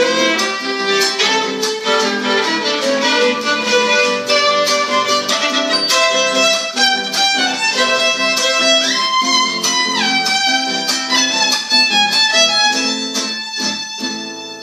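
Violin and acoustic guitar playing a folk tune together: the bowed violin carries the melody over the guitar's strummed accompaniment. The playing tapers off near the end.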